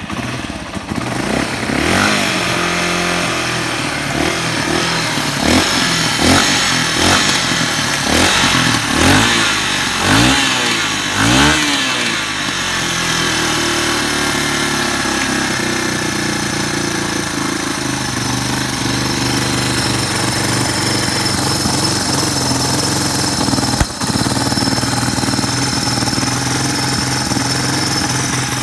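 Yamaha Serow 225's air-cooled single-cylinder four-stroke engine starting on the electric starter, then blipped repeatedly, the revs rising and falling about eight times, before settling into a steady idle. A single sharp click sounds late on. The seller presents it as running with no abnormal noises.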